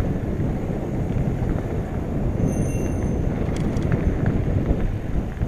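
Mountain bike rolling fast along a dirt trail: a steady rumble of tyres over the ground and rattle of the bike, with a brief high squeal about two and a half seconds in and a few sharp clicks just after.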